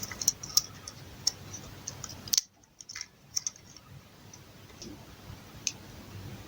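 Scattered small, sharp clicks and taps of repair tools and parts during an iPhone X motherboard swap, irregularly spaced, with a brief silent gap partway through.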